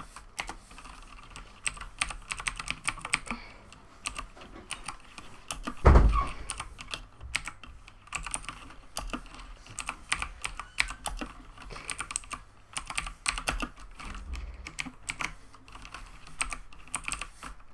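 Fast, uneven typing on a Razer BlackWidow Ultimate mechanical gaming keyboard: a steady patter of clicky keystrokes. A single much louder thump comes about six seconds in.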